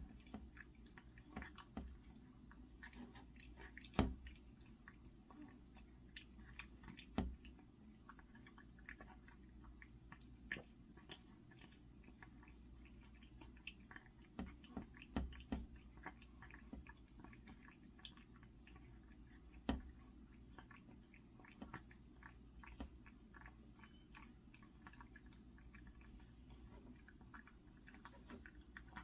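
A cat eating, with faint, irregular chewing and small clicks of the mouth and a few louder clicks. The cat has had teeth extracted for stomatitis.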